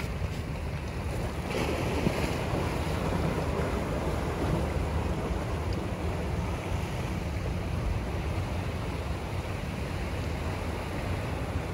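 Wind buffeting the microphone over water lapping against a small boat, with a brief louder rush of water noise about a second and a half in.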